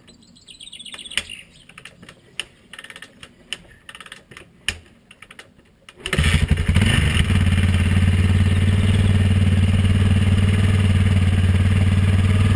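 Yamaha TT-R 600's 600 cc single-cylinder engine being kick-started after standing unused for a year: a run of clicks and clunks from the kickstarter and engine, then about six seconds in it catches and settles into a steady idle.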